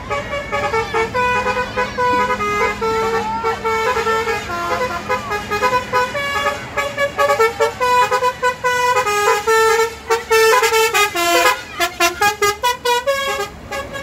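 Bus telolet horn (Basuri multi-tone musical horn) playing a tune of quick stepped notes, breaking into a run of fast, short blasts near the end.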